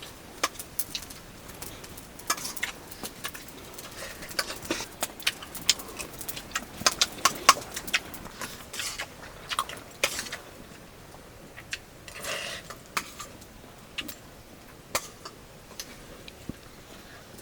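Eating sounds of rice and curry eaten by hand from plates: irregular small clicks, smacks and light clinks, busiest in the middle.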